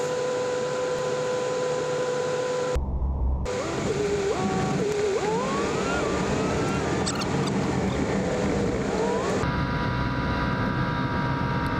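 Work truck driving, heard from inside the cab: steady road noise with an engine whine that rises and falls in pitch as the truck speeds up and shifts. The sound changes abruptly twice where short clips are cut together.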